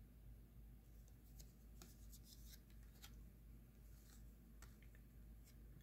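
Faint handling of baseball cards, sliding and flicking as they are leafed through one by one: a scattering of soft ticks and rustles over quiet room tone.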